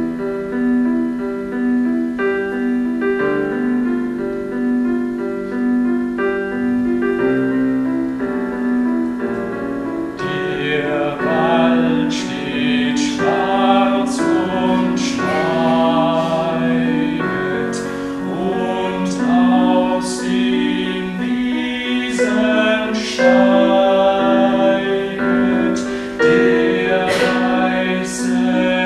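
Keyboard playing a slow, repeating broken-chord figure; about ten seconds in, male voices join, singing together over it.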